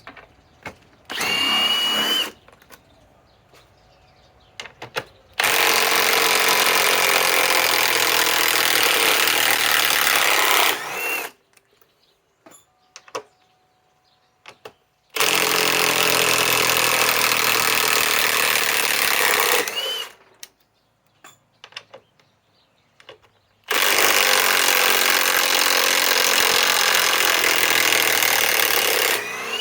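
Milwaukee M18 Fuel Gen 2 mid-torque impact wrench hammering, backing lag screws out of wood. A short burst is followed by three long runs of about four to six seconds each, with a brief blip of the tool after each run.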